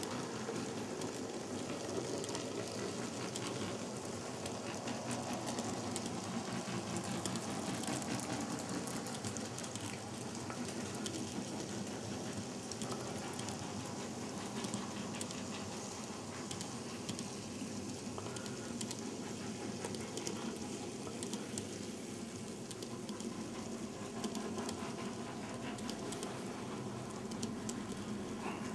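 Z scale model freight train rolling past on the track: a steady, dense fine clatter of tiny wheels over the rails.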